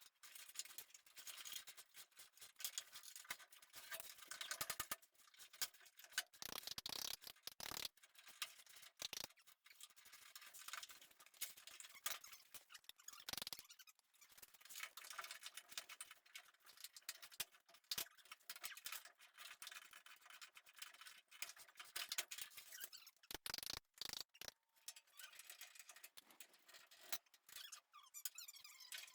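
Faint, irregular scraping and clicking of hand tools working rusted fender bolts and nuts on a 1952 Ford F3, metal rubbing on metal.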